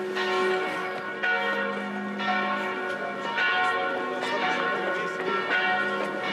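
Church bells pealing, with a new stroke about every second over the long ringing of the earlier ones.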